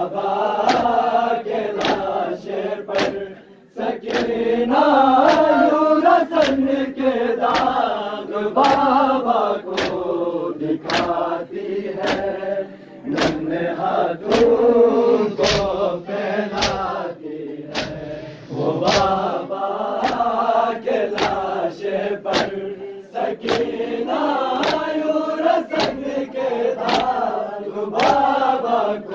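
Crowd of men chanting a noha together in mourning, with a steady beat of sharp slaps from hands striking bare chests (matam) keeping time with the chant.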